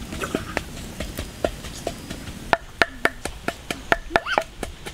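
Small twig fire crackling in a run of sharp clicks that come faster in the second half. One short rising-and-falling call sounds near the end.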